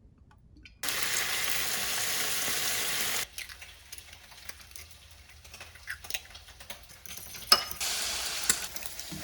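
Kitchen sounds: a steady hiss that starts and stops abruptly, lasting about two and a half seconds, then scattered light clicks and clinks of utensils and dishes, and a second, quieter hiss near the end.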